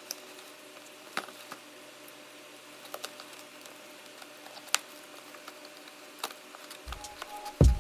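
A cardboard shipping parcel being handled and turned over by hand: a few faint, scattered clicks and taps, with a heavier thump or two near the end.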